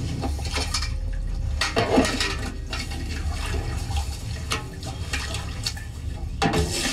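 Water splashing in a large metal pot, then poured from a bucket into a big basin of minced mutton near the end, as the meat is washed.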